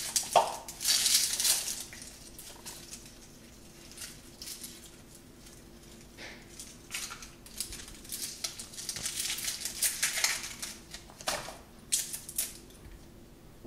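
Dry, papery onion skin crackling and rustling as it is peeled off a halved onion by hand, together with the first layer and its thin membrane. The crackling comes in short spells, loudest near the start and again about two-thirds of the way through, with quieter picking in between.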